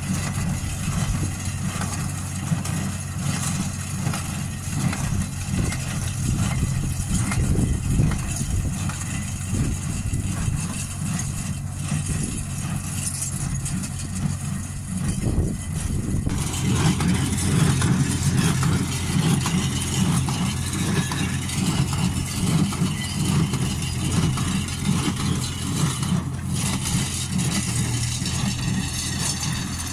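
Tractor engine running steadily while driving a small square hay baler through the field. The sound changes in character about halfway through.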